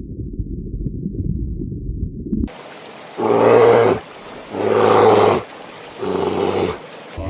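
A large animal calling three times in loud, pitched calls under a second each, after a low rumbling noise.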